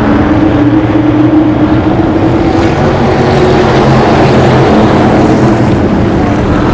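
SK Light modified race car's carbureted V8 engine, heard close up from an onboard camera, running at racing speed with a nearly steady pitch.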